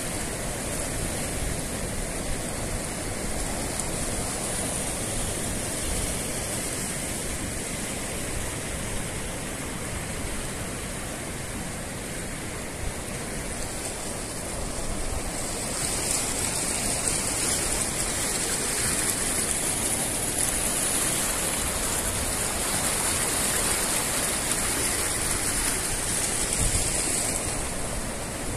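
Floodwater of a swollen river rushing past: a steady noise of water, with a brighter hiss from about halfway that drops back shortly before the end.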